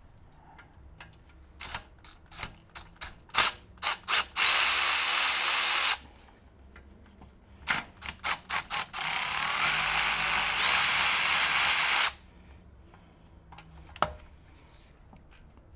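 Cordless electric ratchet spinning out the bolts of a golf cart engine's oil filter cover: a string of short trigger blips, then a run of about a second and a half. After more short blips, a longer run of about three seconds. One last click comes near the end.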